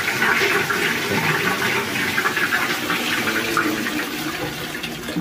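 Wall-hung toilet flushed from a concealed cistern, water rushing and swirling through the bowl and easing off toward the end. It is a test flush of the freshly cleaned and reassembled cistern.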